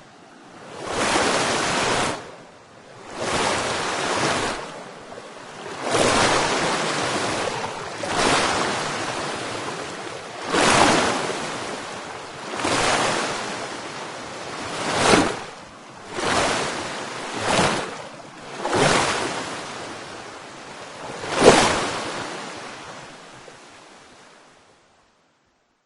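Water rushing in a run of separate surges, about ten of them, each one swelling up and then falling away. The sound fades out near the end.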